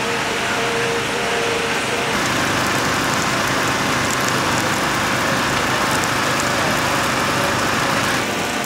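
Steady hum of a small engine running. A fuller hiss joins it about two seconds in and drops back near the end.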